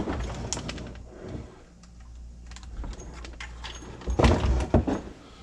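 Handling noise as a CAT control cable is plugged into the back of an Icom IC-7000 radio: scattered small clicks and rubbing of cable and connector over a steady low hum, then a louder cluster of knocks and clatter about four seconds in.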